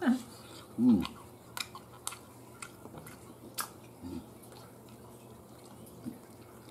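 People eating roast chicken: chewing with a few light sharp clicks, and short hummed voice sounds, the loudest two at the start and about a second in.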